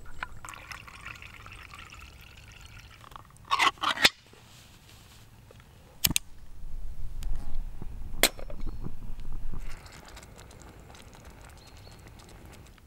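Liquid fuel trickling from a bottle into a small spirit burner in a folding metal stove, then a loud metallic clatter. Two sharp clicks follow with handling noise as the burner is lit.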